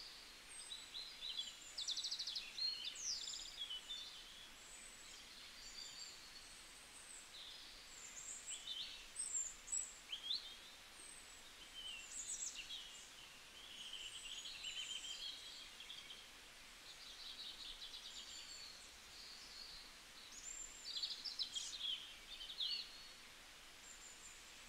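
Songbirds singing: many short chirps, whistles and quick trills overlapping over a faint steady hiss, louder in a few clusters.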